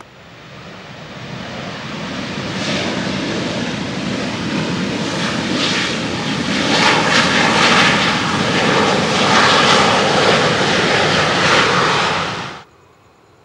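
Boeing 737-800's CFM56 turbofan engines running at high power as the jet rolls past on the runway, growing steadily louder as it nears, then cutting off abruptly near the end.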